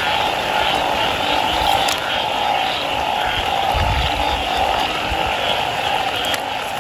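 A dense chorus of frogs calling steadily. There is a low thump about four seconds in.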